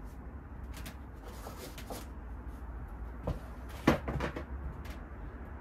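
Wooden MDF boards being handled and set down: soft rustling, then a knock a little over three seconds in and a louder clunk followed by a short clatter about a second later, over a steady low hum.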